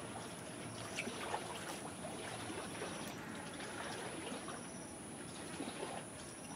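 Water running and trickling in a steady stream, with scattered small splashes or ticks and a faint steady high-pitched whine throughout.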